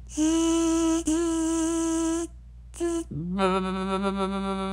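Angle grinder with a cutoff wheel cutting the rusted steel frame, its motor whining at a steady pitch, with two brief dips before it stops a little over two seconds in. About three seconds in, a lower-pitched air tool spins up and runs steadily.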